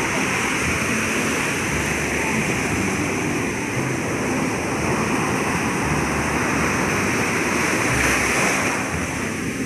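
Large ocean waves breaking into surf: a steady rush of foaming white water, a little louder about eight seconds in.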